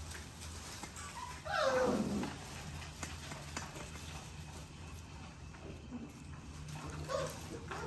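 American bully puppies playing in wood shavings: one puppy gives a loud yelp about one and a half seconds in, and a shorter squeal comes near the end, over the soft rustle and patter of paws in the shavings.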